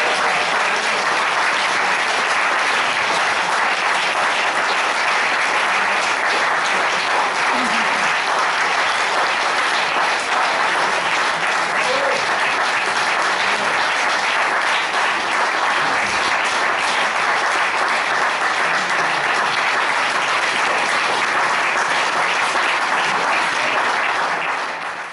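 A small group of people applauding steadily, cut off sharply near the end.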